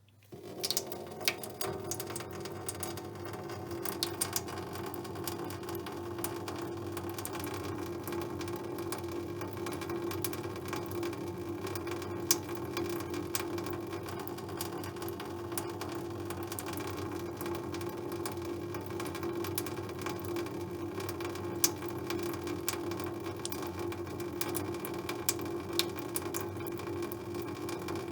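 Tap water running slowly into a metal sink: a steady trickle with many small sharp ticks of water striking the metal. It starts about half a second in.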